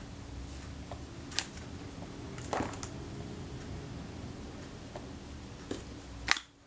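Small metal hand tools, a pick and tweezers, clicking and tapping against a camera body during repair: a few sharp ticks, a short cluster of them about two and a half seconds in and the loudest just before the end, over a faint steady hum.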